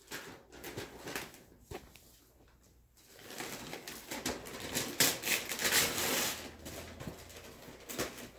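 Gift wrapping paper being torn and ripped off a box: a few light handling taps at first, then from about three seconds in a run of rustling and ripping, loudest around five seconds in.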